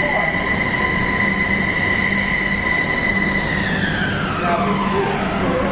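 Metro train pulling into a station: a rumble with a steady high whine from its electric drive, which glides down in pitch over the last two seconds as the train slows to a stop.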